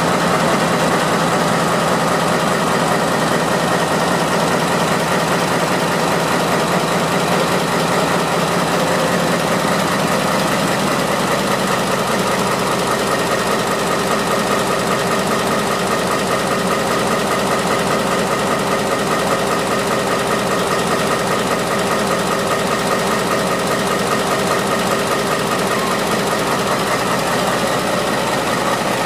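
A KiwiRail DL class locomotive's MTU 20V4000R43 twenty-cylinder V diesel engine running steadily, heard close up through its open engine-room doors.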